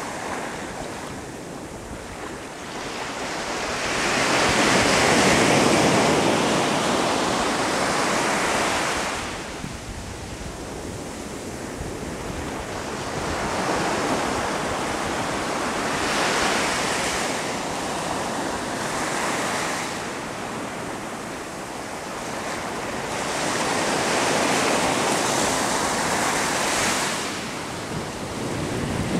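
Small waves breaking and washing up a sandy beach, the surf noise swelling and fading in several long surges.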